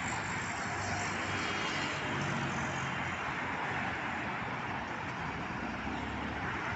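Steady road traffic noise from cars passing on a road.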